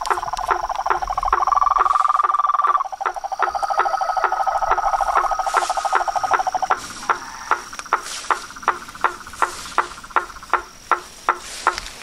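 Frogs calling at night: a fast pulsed trill that stops about seven seconds in, over a regular clicking call repeated about three times a second. A steady high insect tone, like a cricket's, runs underneath.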